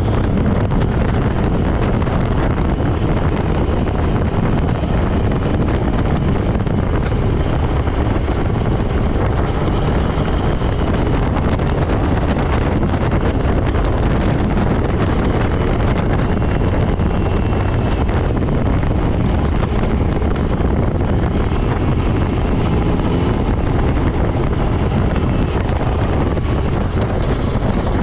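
Motorcycle engine running while riding along at road speed, mixed with heavy wind buffeting on the microphone in a steady, loud rush.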